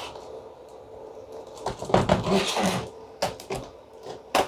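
Plastic bottom panel of a Dell laptop being pried and pulled off: a scraping of plastic and several sharp clicks as the panel's retaining clips snap free.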